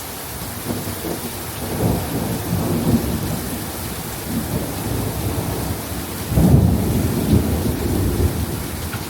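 Thunder rumbling over steady rain, in two rolls, the louder one about six and a half seconds in.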